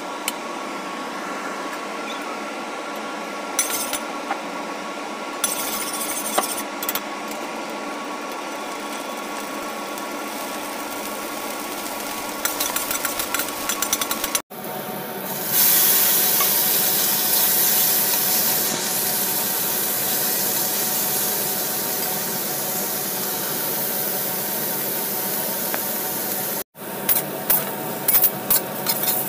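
Steady background hum while oil heats in a wok. About halfway in, a loud high hiss of oil sizzling as ginger and garlic hit the hot oil. Near the end come rapid clicks and scrapes of a spatula stirring pork in the wok.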